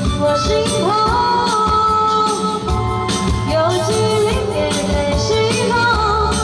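Pop song playing: a sung melody, held and sliding notes, over a band with a steady beat.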